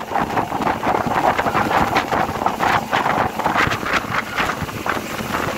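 Wind buffeting the microphone aboard a small motorboat running in open water, over irregular rushing surges of water.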